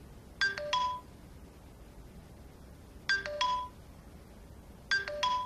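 Short electronic notification chime sounding three times a few seconds apart. Each chime is about half a second of quick high notes that step down to lower held tones.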